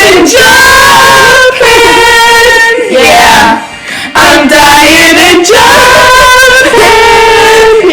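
A singing voice holding a series of long, drawn-out notes with vibrato over backing music.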